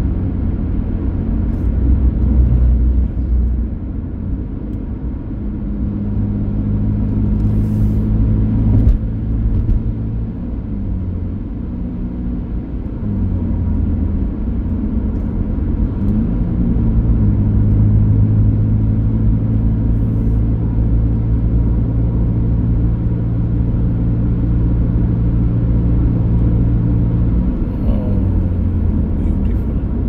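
Car engine running with road rumble while driving; the engine note holds steady for long stretches and shifts in pitch a few times.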